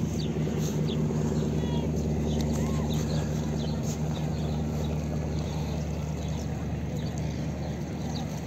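An engine running steadily with a low, even hum, with short bird chirps over it.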